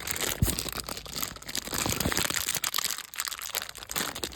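Plastic wrapping crinkling and rustling as it is handled by hand, with a couple of short low thuds.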